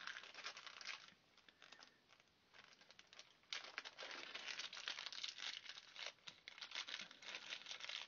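Faint crinkling and rustling of packaging being handled while heat-shrink tubing is got out of the kit. The crinkling is sparse at first and thicker and busier from about halfway through.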